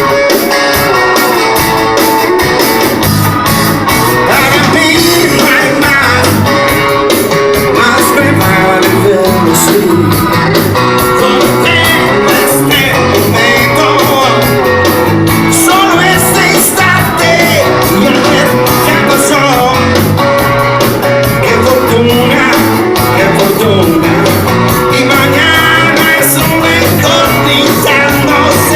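Rock band playing a song, with guitar, drums and a singing voice.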